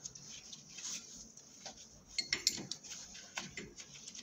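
Scattered light metallic clicks and clinks of a 17 mm wrench turning out a chuck-mounting nut on a lathe spindle, with a brief cluster of louder clinks about two seconds in.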